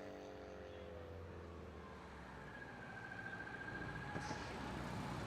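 A car's engine dying away into the distance after passing, fading to a faint low rumble that slowly builds again toward the end.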